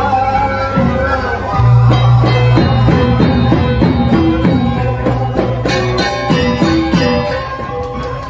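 Balinese gamelan ensemble playing accompaniment for a Topeng Tua masked dance: quick rhythmic struck metallophone notes over a deep sustained tone that enters about one and a half seconds in.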